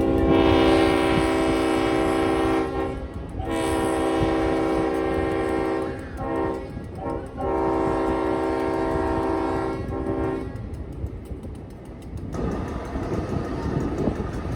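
Diesel locomotive air horn blowing the grade-crossing signal, long, long, short, long, the last blast ending about ten seconds in, followed by the rumble and clatter of the train running on the rails.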